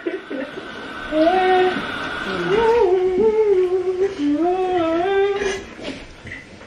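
A woman humming a tune, a few held notes that slide up and down, for about four seconds starting about a second in.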